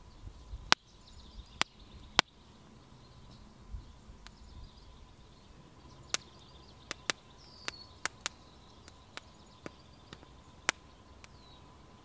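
A small wood fire crackling: sharp, irregular pops, three in the first two seconds and then a quicker run of them in the second half. Faint bird chirps are heard in the background.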